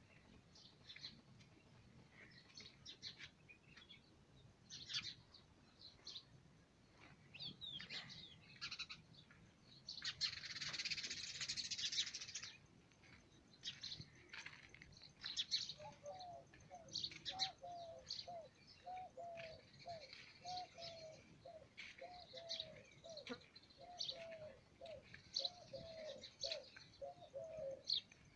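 Birds chirping in short high calls, with a two-second rush of noise about ten seconds in. From just past the middle, a repeated low call of short rising-and-falling notes, a little more than one a second.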